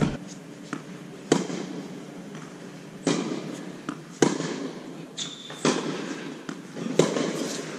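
Tennis rally on an indoor court: tennis balls struck by racquets and bouncing, a sharp pop roughly every second and a half, each ringing briefly in the large hall.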